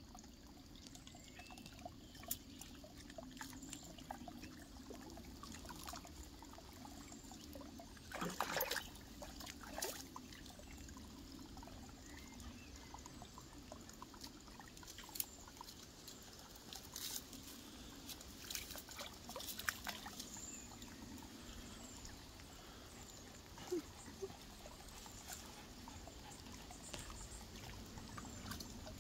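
Small terriers wading in a shallow, muddy creek pool: faint water sloshing and soft splashes, with a few louder splashy bursts about a third of the way in and again just past halfway.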